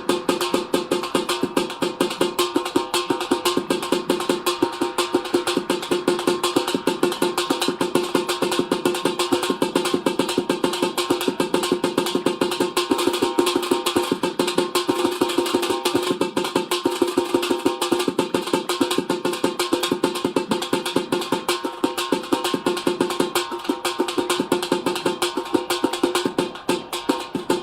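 Instrumental introduction to a Hindu devotional song: fast, steady hand percussion over a held drone note, with no singing.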